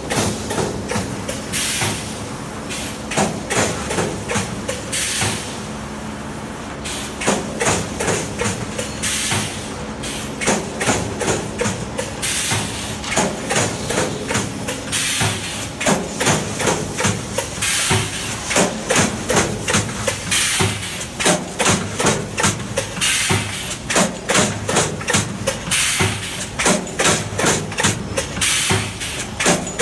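Automatic multi-head wire mesh welding machine running: its row of pneumatic weld heads cycling in a quick, regular rhythm of sharp clanks and air hisses over a steady hum, the pace picking up after about seven seconds.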